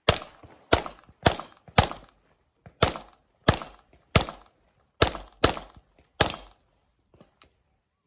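Handgun shots fired in a fast string during a practical shooting stage: about ten shots, spaced roughly half a second to a second apart, each sharp with a short ringing tail. A couple of faint clicks follow near the end.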